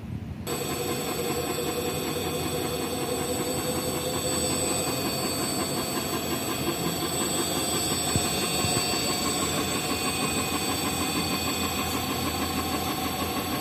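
YaMZ-238 V8 crankshaft, with its flywheel and four bobweights, spinning on the rollers of a dynamic balancing machine at about 400 rpm. This is the first calibration run that measures its imbalance. The steady mechanical running noise starts abruptly about half a second in.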